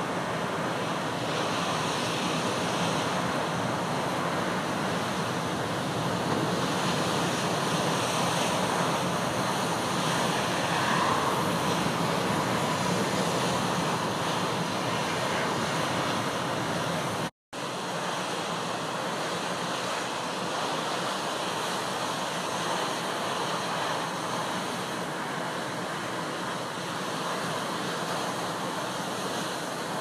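Heavy surf breaking over a rock ledge and streaming off it in gale-force wind: a steady rush of churning water. The sound cuts out for an instant about two-thirds of the way through.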